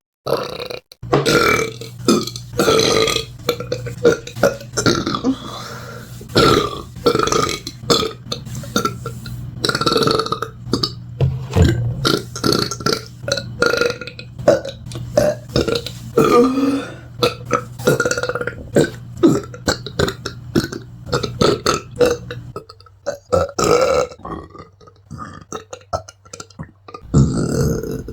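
A person belching over and over: a rapid run of short, loud, pitched burps, several a second, thinning out to a few spaced burps about 23 seconds in.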